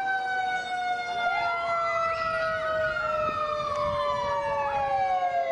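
Two emergency-vehicle sirens sounding together. One holds a long tone that slowly falls in pitch; the other rises from about a second in, peaks, then slowly falls.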